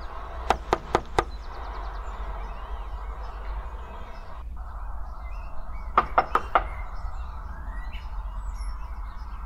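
Knocking on a door: four quick raps, then about five seconds later another four. Birds chirp faintly in the background.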